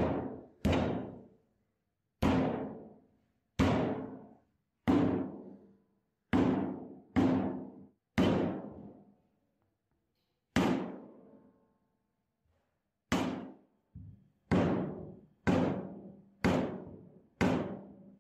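A series of heavy, drum-like percussive hits, each ringing out for about a second, roughly one every second or so, with a longer pause near the middle.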